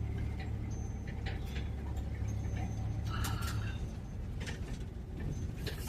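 Old van rolling slowly forward over frozen ground, its engine a steady low drone under irregular clicks and rattles from the van's body, with one brief louder clatter about three seconds in.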